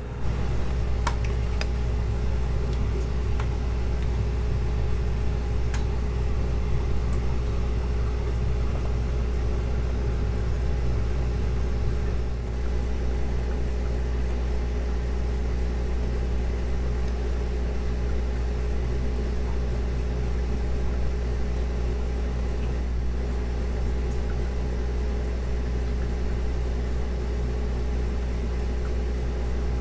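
Steady low mechanical hum of aquarium air pumps and filters running, with a few faint clicks about a second in.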